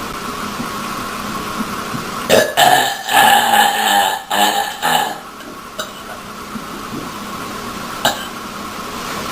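A woman's long, drawn-out belch of about three seconds, starting about two seconds in and breaking into a few pulses.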